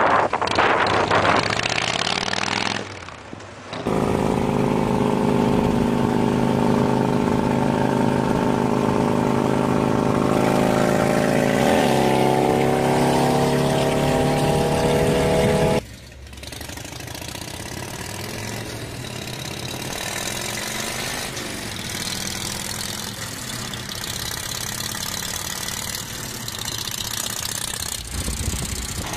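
Harley-Davidson V-twin motorcycles riding, in separate clips: a Sportster 1200 briefly, then a Dyna Low Rider with a loud, steady exhaust note that climbs slightly in pitch. After a sudden cut about a third of the way through, a quieter, rougher V-twin exhaust from another Dyna Low Rider follows.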